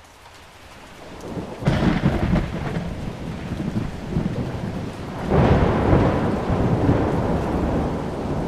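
Thunderstorm: steady rain with two thunderclaps, one a little under two seconds in and a louder one about five seconds in, each rumbling on and fading slowly.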